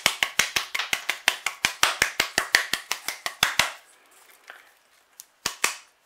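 Rapid, even tapping on an orchid pot, about seven taps a second, settling the backfilled bark around the roots. It stops about three and a half seconds in, with two more taps near the end.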